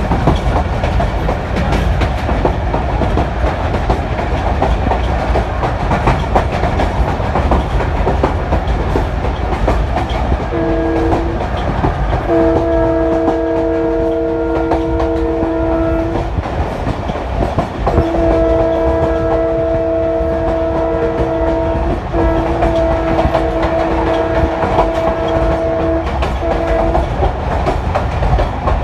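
Passenger train running, with a steady rumble and the clickety-clack of wheels on rail joints. About ten seconds in, the locomotive's three-note chime horn gives a short blast, then several long blasts that last until near the end.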